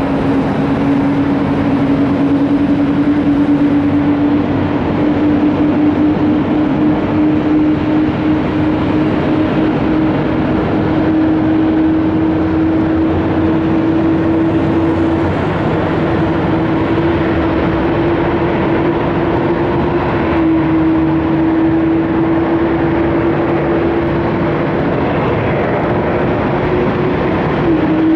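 Boeing 787-9 airliner on the ground at pushback, its engines running: a steady whine that creeps slowly up in pitch over a broad rumble.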